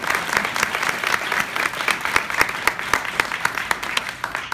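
Small audience applauding, with a few loud individual claps close by. The applause dies away near the end.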